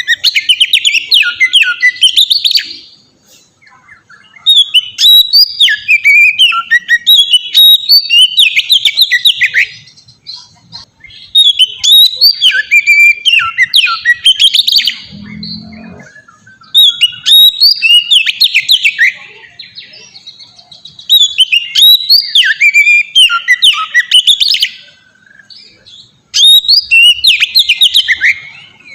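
Oriental magpie-robin (kacer) singing loud, full, varied song phrases, delivered in bouts of a few seconds each with short pauses between. There is a brief low thud about halfway through.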